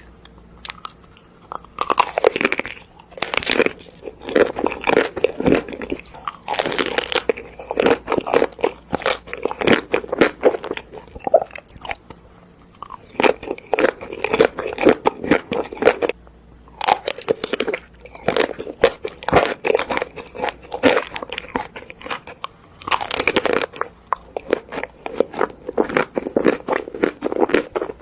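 Chocolate snapping and crunching close to the microphone: dense runs of sharp cracks in bursts, with a few short pauses.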